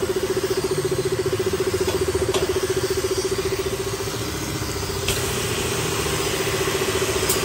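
Italian triplex pressure-washer pump with 20 mm ceramic plungers, belt-driven by an electric motor, running steadily on test. It makes a steady hum with a rapid even pulse over the hiss of water spraying out, with a small click about five seconds in.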